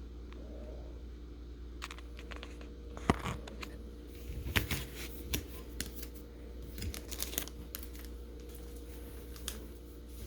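Pokémon trading cards and their packaging being handled: scattered soft clicks, taps and crinkles over a steady low hum.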